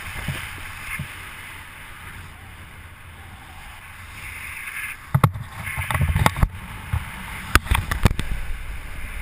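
Wind rushing over a helmet camera's microphone during a descent under an open parachute canopy, steady at first. About five seconds in it turns gusty, with heavy buffeting and a run of sharp knocks.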